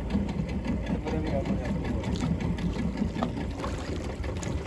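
A 40 hp outboard motor running steadily at low speed, a fast, even mechanical chugging.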